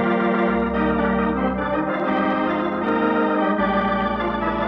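Organ music serving as a radio drama's curtain bridge: sustained chords over a bass that moves to a new note a few times.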